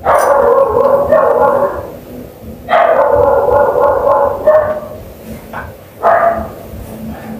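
A man crying aloud: three long wailing sobs, each a second or two long, with quieter gaps between.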